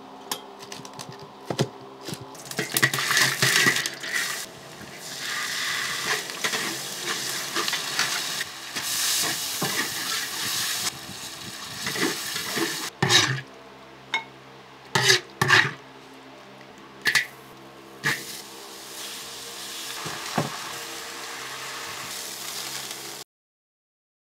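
Cooking sounds: food sizzling in a hot wok as it is stirred, through much of the first half. Then a series of sharp knocks and clicks from a utensil against the wok or board, before the sound cuts off near the end.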